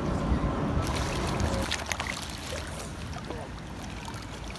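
Small splashes and drips of water as a landing net is dipped into and drawn through a trout-farm channel. A low rumble drops away after about a second and a half, leaving lighter, scattered splashes.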